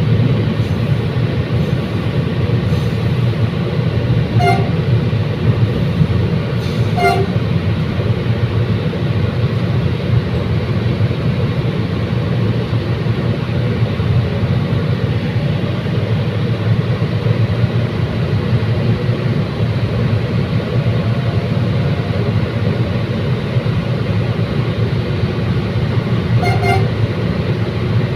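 Commuter train running along the track: a steady loud rumble, broken three times by brief sharp clanks.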